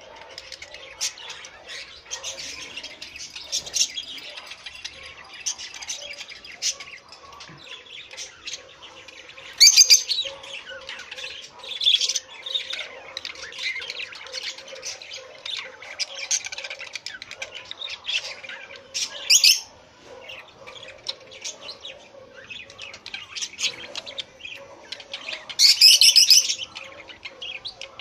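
Caged budgerigars chirping and chattering continuously, with several louder, sharper squawks, the loudest near the end.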